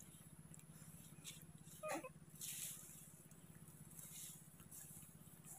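Near silence: faint outdoor background with a steady low hum, a brief wavering squeak about two seconds in, and a few faint soft rustles.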